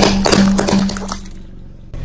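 Car tyre crushing small plastic toys: a loud crack at the start, then a quick run of plastic cracks and snaps over a steady low tone and rumble, dying down after about a second.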